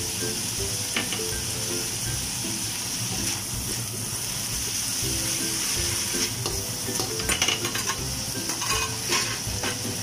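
Minced pork and chopped chili sizzling steadily in a hot wok as they are stir-fried, with the spatula scraping and clicking against the pan, most in the last few seconds.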